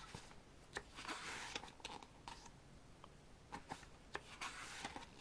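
Pages of an album photobook being turned by hand: faint paper rustles about a second in and again near the end, with small taps and clicks between.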